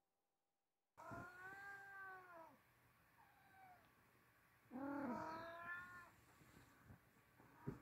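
Oriental kitten giving long, drawn-out meows: one about a second in that rises and then falls in pitch, a short softer one after it, and a louder one near the middle. A brief knock comes near the end.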